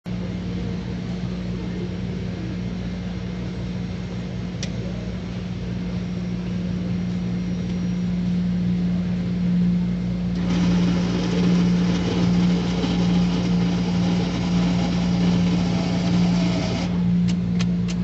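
A fully automatic coffee machine under a steady low hum. Just after a drink button is pressed about ten seconds in, it starts a loud whirring that runs for about six seconds and stops suddenly. A few sharp clicks follow near the end as it moves on to dispensing into the cup.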